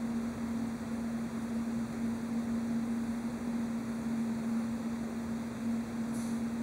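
Garbage truck's hydraulic packer running on the engine-driven pump, a steady whine over the diesel's hum. A brief high hiss near the end.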